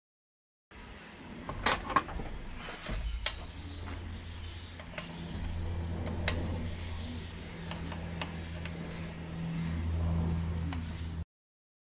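Sharp metallic clicks and taps of a small hand tool working on the throttle-body linkage brackets of an individual-throttle-body intake, irregular and spread out, over a low steady hum.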